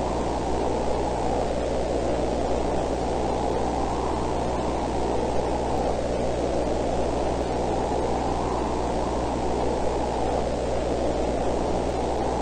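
Steady rushing static-like noise, muffled and strongest in the low and middle range, over a faint low hum, unchanging throughout.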